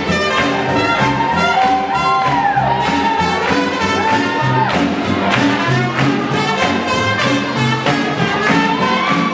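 Live swing jazz band playing up-tempo, with a steady rhythm-section beat under a brass lead that scoops and bends its notes.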